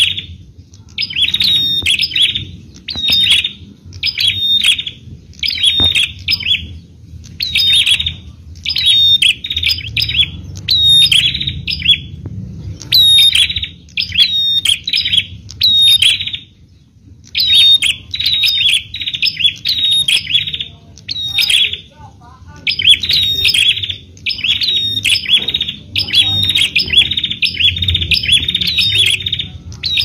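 Bar-winged prinia (prenjak) song: short bursts of rapid, high chirping notes repeated about once a second, broken by a few brief pauses.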